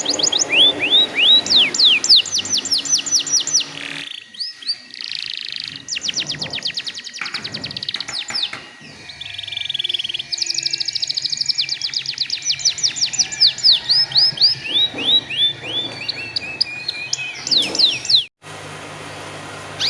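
Domestic canary singing: long rolling trills of fast, evenly repeated downward-sweeping notes that switch to a new phrase every few seconds. The song cuts off abruptly near the end.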